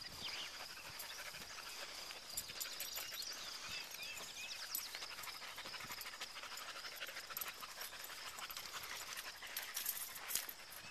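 Dog panting hard, with rapid, steady breaths through an open mouth: the dog is tired out from the walk.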